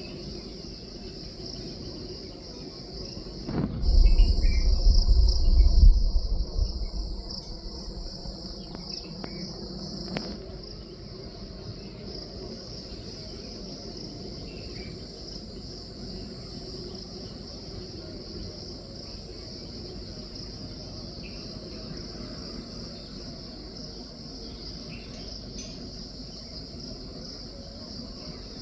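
Steady, high-pitched insect chorus, like crickets, running unbroken. About four seconds in, a loud low rumble lasts roughly three seconds.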